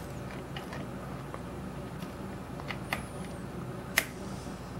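Small sharp clicks of a hook pick working the pin stack of a brass Yale-style euro cylinder lock during single-pin picking, the loudest click about four seconds in, over a steady low background hum.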